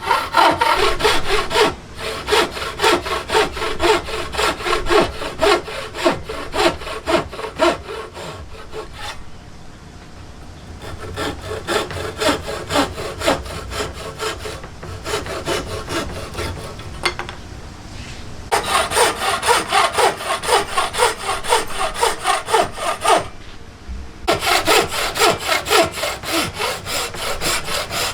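Hand saw cutting through wood in quick, even back-and-forth strokes, in several runs separated by short pauses.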